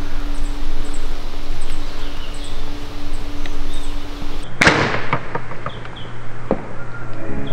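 A bow shot: a sharp snap about halfway through with a short fading tail, then a few fainter knocks, over steady outdoor background noise.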